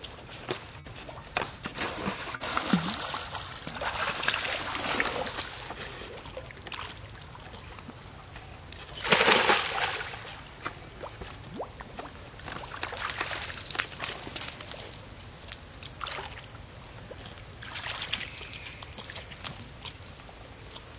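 Water splashing and sloshing in irregular bursts as a young monkey swims and dives, the loudest splash about nine seconds in.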